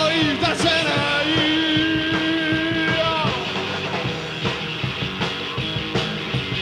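Live rock band recording: a singer holds a long, steady note from about a second in to about three seconds, over drums.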